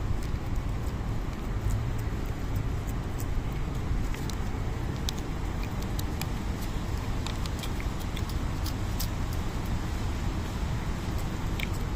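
A cat licking Churu treat paste from a squeeze tube, its tongue making irregular quick wet clicks over a steady low rumble.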